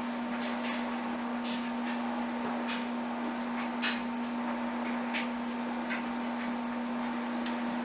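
Room tone: a steady hum with scattered faint clicks and taps, about one a second. One tap a little louder near the middle.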